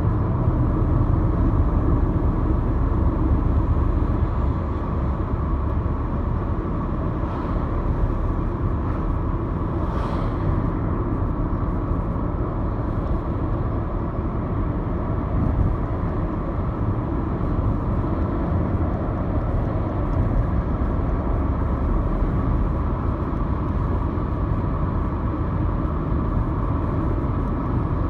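Steady road noise heard inside a moving car's cabin: the low rumble of the engine and tyres on the asphalt, without change in pace.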